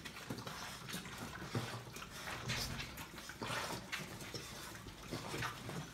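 Several Staffordshire bull terrier puppies licking and lapping at a stainless steel food bowl, a busy run of irregular wet smacks and licks.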